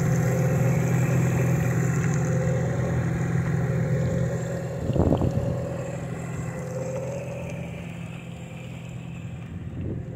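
Small boat's outboard motor running steadily, with a single thump about five seconds in; the engine sound eases off in the second half.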